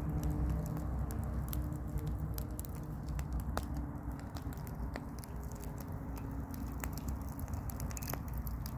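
Wood fire crackling in a mesh-screened fire pit: irregular sharp pops and snaps, several a second, over a low steady rumble.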